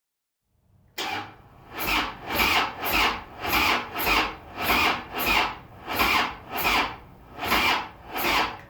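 Hand tool worked back and forth against a hard surface, rasping in even strokes at about two a second, starting about a second in.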